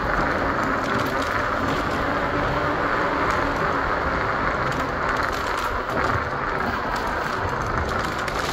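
Steady hiss of riding noise from a moving bicycle, tyre and wind noise mixed with passing car traffic, holding an even level throughout.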